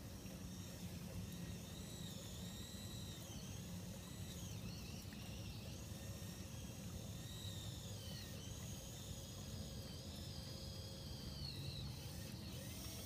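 Radio-controlled crawler crane's motors and gears whining as the clamshell bucket is worked in sand, the high whine gliding up and down in pitch with motor speed over a steady low hum.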